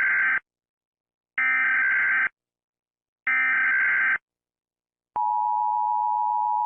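Emergency Alert System SAME header data bursts: three harsh digital warbles, each just under a second long and about a second apart. About a second later comes the EAS two-tone attention signal, a steady dual tone held for about two seconds.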